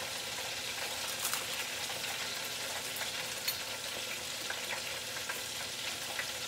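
Hot oil frying: a steady sizzle with scattered small crackles and pops.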